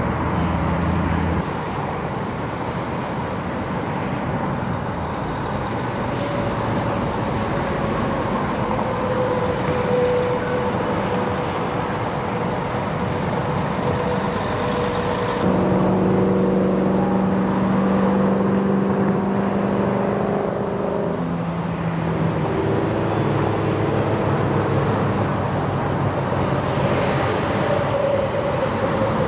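Freeway traffic passing steadily. About halfway through, a steady engine hum joins in close by.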